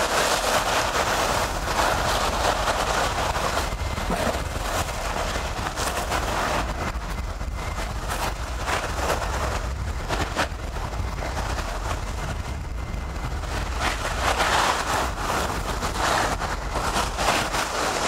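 Small sea waves breaking over rocks and washing up a sandy shore, the wash swelling near the start and again toward the end, over a steady low rumble of wind on the microphone.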